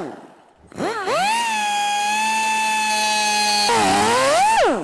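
High-speed power grinder cutting into the bearing retaining collar on a rear axle shaft. Its whine rises as it spins up about a second in and holds a steady pitch. Near the end it sags as the tool bites, climbs again, then winds down.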